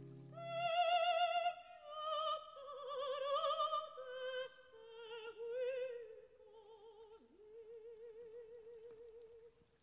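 A woman's operatic voice sings an unaccompanied answering phrase with wide vibrato. It starts high, winds down, and ends on a long held note that stops just before the end.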